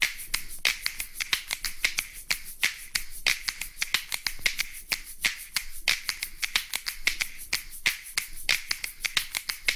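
A rapid, uneven run of sharp clicks or snaps, several a second.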